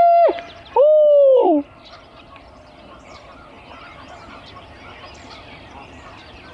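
Coyote howl locator call blown twice to draw a gobble from roosted turkeys: the tail of one long howl, then a second howl of about a second. Each rises, holds a steady pitch and drops off. Faint small-bird chirping follows.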